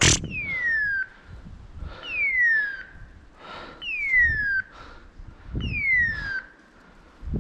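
A hunting dog's electronic beeper collar sounding a falling, whistle-like tone about every two seconds. Footsteps crunch through dry leaf litter underneath, with a sharp crack right at the start.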